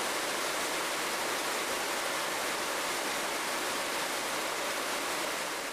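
Steady, even hiss with no clicks, knocks or machine rhythm, easing off slightly near the end.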